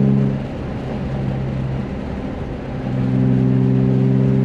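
BMW E36 M3's inline-six engine and exhaust heard from inside the cabin, holding a steady note that drops away about half a second in and comes back at about three seconds.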